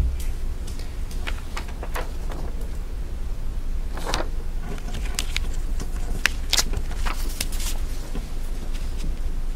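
Steady low hum of room noise with scattered soft clicks and paper rustles, busiest about five to eight seconds in, as a hand handles the sheet of lecture notes.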